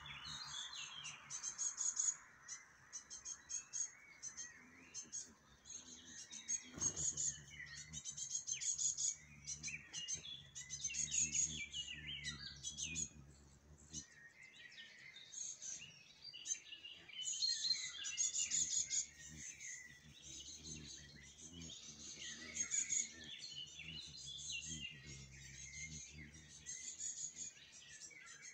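Small songbirds chirping and trilling, with many short high calls in quick series and brief pauses between bouts. A faint low hum comes and goes underneath.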